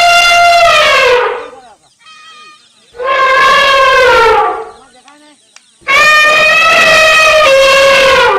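Asian elephants trumpeting: three long, loud, horn-like calls, each lasting one and a half to two and a half seconds. The first two slide down in pitch as they fade, and the third is still sounding at the end.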